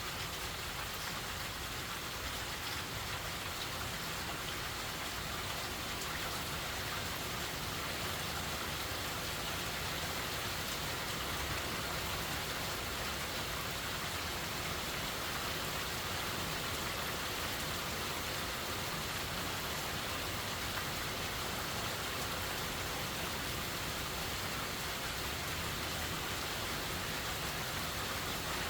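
Steady rain falling during a hurricane: an even, unbroken hiss of rain with no lulls or separate events.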